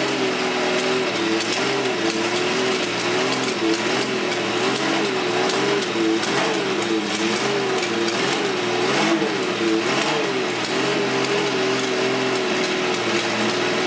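Porsche 917 KH's air-cooled flat-twelve racing engine running at idle. Its pitch wavers up and down about once a second as the throttle is worked lightly.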